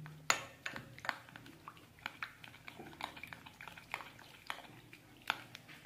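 Metal spoon stirring a wet butter, milk and ginger-garlic paste mixture in a perforated steel strainer: quiet, irregular light scrapes and clicks of spoon on metal, a few a second.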